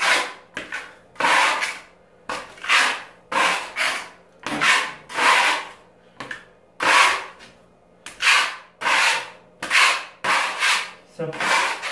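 Steel putty knife scraping wall filler across a plaster wall in repeated short strokes, roughly one to two a second.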